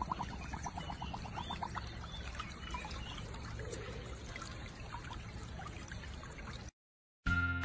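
Shallow stream water trickling steadily over stones, with a quick run of high chirps in the first couple of seconds; it stops abruptly near the end.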